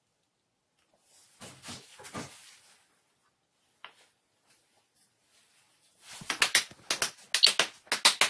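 Soft plastic rustling, then from about six seconds in a quick run of sharp wood-on-wood knocks as joinery pieces, a post and a crossbeam, are pushed down onto their tenons.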